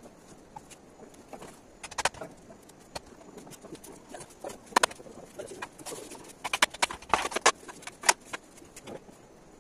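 Sharp hollow knocks and taps of tools and poles striking bamboo, coming irregularly, with a quick run of knocks about seven seconds in.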